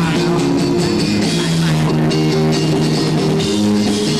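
Amateur rock band playing live: electric guitars and a drum kit through small amplifiers, with a singer on microphone.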